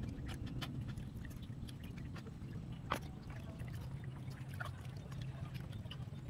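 Water sloshing and splashing in a plastic basin as a whole fish is rubbed and scrubbed by hand, with scattered small clicks and one sharp tap about three seconds in.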